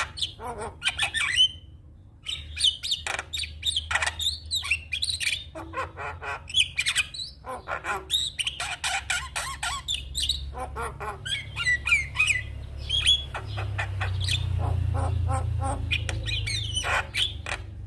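Javan myna singing a busy song of rapid harsh chattering, clicks and squawky whistled notes, pausing briefly about two seconds in. A low rumble underneath grows louder in the second half.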